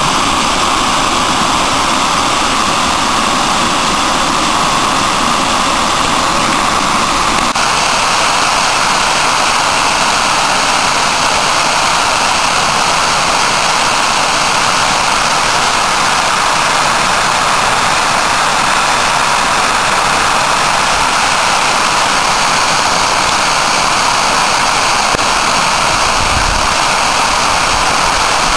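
Storm runoff overflowing a stepped masonry dam, a loud, steady rush of falling and churning water. About seven seconds in, the deeper part of the rush drops away suddenly.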